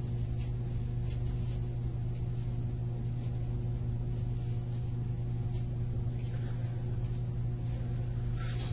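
Steady low electrical hum with an even hiss: the room tone of the recording. A few faint ticks, and a brief rustle near the end.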